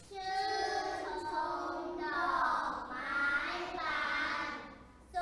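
A class of young children reading a Thai rhyming verse aloud together in a sing-song chant. Their voices fade out about five seconds in.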